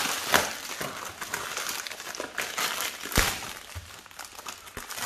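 Plastic Priority Mail bubble mailer crinkling and rustling as hands work it open, with irregular crackles, the sharpest just after the start and about three seconds in.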